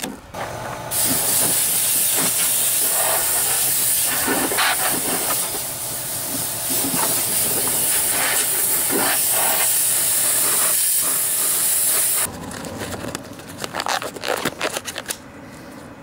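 Compressed-air blow gun giving a loud, steady hiss for about eleven seconds, blowing dust and debris out from under a riding mower; it cuts off sharply, followed by a few light knocks and rustles of handling.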